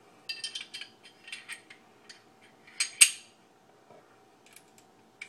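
Light metal-on-metal clicks and clinks as a Glock 30's barrel is fitted into its stainless slide. There is one sharp, louder clack about three seconds in.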